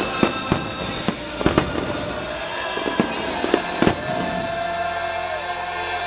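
Aerial fireworks bursting overhead: a quick run of sharp bangs and crackles through the first four seconds, thinning out after, with music playing underneath.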